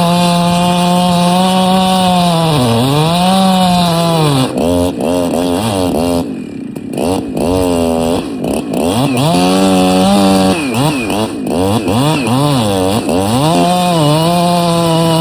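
Chainsaw cutting into a eucalyptus stem at full throttle, its revs dipping under load. The engine note falls away about six seconds in, swings up and down several times, then settles back to a steady full-throttle cut.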